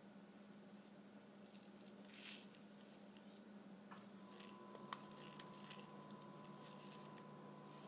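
Near silence: faint rustles and one small click from hands pressing a felt-edged craft piece, over a steady low hum.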